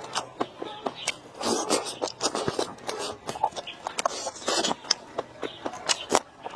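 Close-miked eating sounds: chewing and mouth clicks, with irregular sharp clicks and short crunchy bursts.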